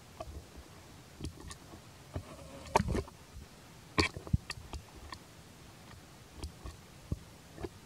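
Macaques shifting about on dry leaf litter: scattered soft clicks, taps and rustles, the loudest a few seconds in.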